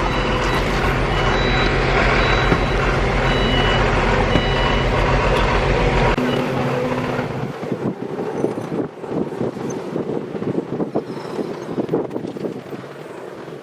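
A motor vehicle's engine runs with a steady low hum, heard from inside the vehicle. About six seconds in it cuts off abruptly, and quieter, uneven rumbling noise follows.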